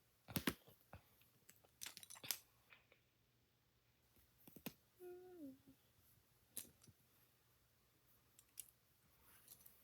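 Plastic Lego bricks being handled and snapped together: a scattering of sharp, separate clicks at irregular intervals. A short, falling pitched sound comes about five seconds in.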